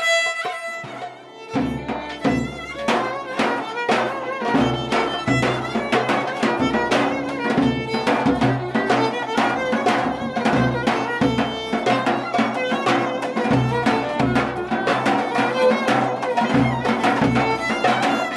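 Live Greek folk music: a violin leads over lute and percussion playing a steady beat. The band comes back in after a short lull about a second and a half in.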